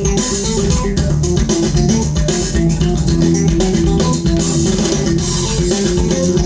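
Music with plucked guitar and bass guitar, a steady run of short notes.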